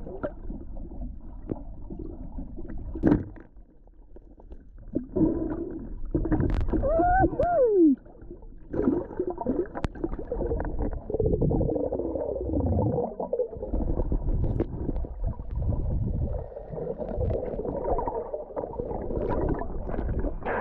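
Muffled underwater noise picked up by a submerged camera: water sloshing and gurgling with low rumbles. There is a sharp knock about three seconds in, and a short warbling tone that falls in pitch around seven seconds in.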